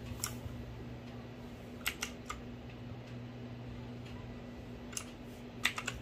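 Outemu Blue clicky switches on a Sunsonny SK-K1 mechanical keyboard with ABS double-shot keycaps, pressed a few times: a single click, a quick group of three about two seconds in, one more, then a cluster of clicks near the end. A steady low hum sits underneath.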